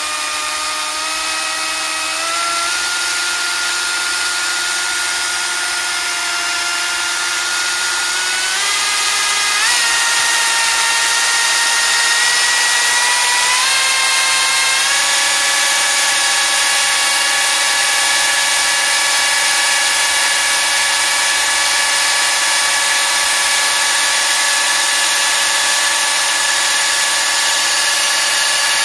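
Husqvarna 36V cordless chainsaw running with no load at about three-quarter throttle: a steady electric motor and chain whine that steps up in pitch three times in the first fifteen seconds, then holds. It is being run free for a chain-lubrication check, and its automatic oiler is working.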